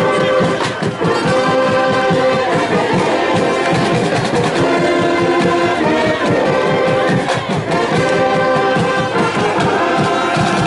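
Marching band playing: sousaphones and other brass hold loud chords over a steady drum beat.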